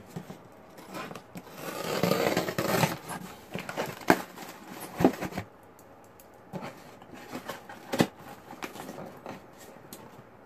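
Hands working open a tape-sealed cardboard shipping box: scraping and rustling of cardboard and tape, loudest two to three seconds in, with sharp clicks about four, five and eight seconds in. Small snips and ticks of scissors cutting at the packing tape follow in the second half.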